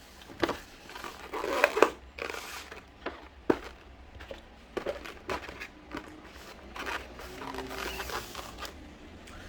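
Irregular close-up crunching and crinkling with several sharp clicks, from a meal and its takeaway packaging being handled.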